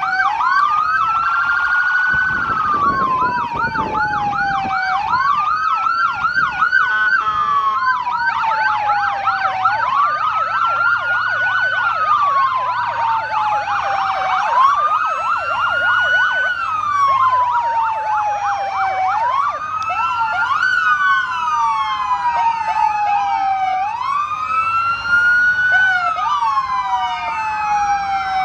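Several police car sirens sounding at once as a line of squad cars passes. A slow wail rises and falls about every five seconds, overlapped by faster yelp sirens sweeping several times a second.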